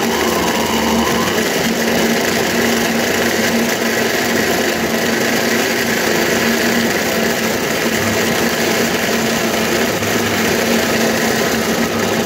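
Electric mixer grinder (mixie) running steadily with a constant hum, churning a thick banana, cocoa, cream and milk mixture in its lidded jar.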